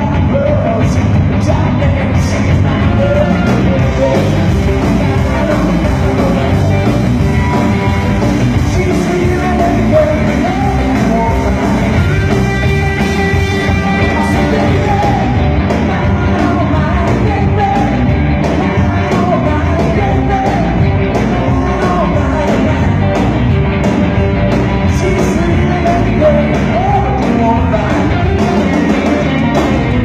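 Blues-rock band music with a singing voice over the band.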